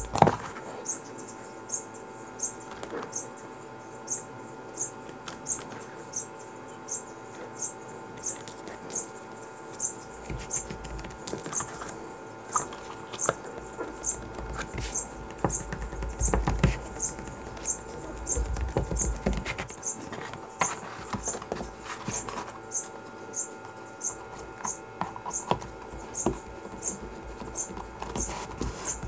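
Hand leatherwork at the bench: a soft, regular tick about every three quarters of a second, with low knocks and rustles of handling the leather around the middle.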